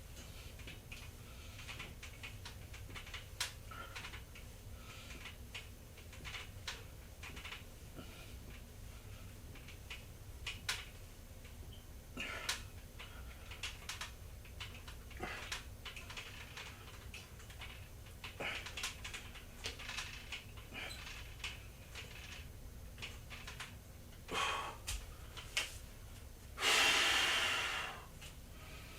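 A person breathing audibly, with scattered short clicks and knocks, and one loud rush of breath about two seconds before the end.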